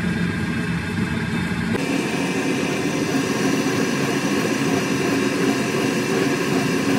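Hydraulic press pump motor running steadily as the ram presses down on a truck front axle beam. Its tone changes a little under two seconds in.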